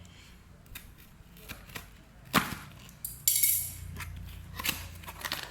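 Hands handling gift packaging: scattered small clicks and taps, a sharp snap a little over two seconds in, then a brief rip or rustle about a second later.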